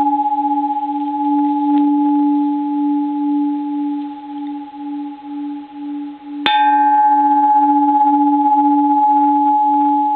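Japanese bronze Buddhist temple bell ringing on with a long sustain, its low tone throbbing slowly over a higher overtone. It is struck again about six and a half seconds in, bringing out brighter overtones that soon die away.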